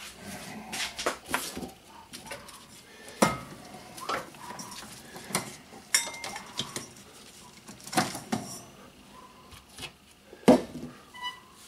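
Small glass paint jar and plastic craft-paint bottles clinking and knocking as they are handled and set down on a workbench: irregular clicks and taps, with a short ring near the end.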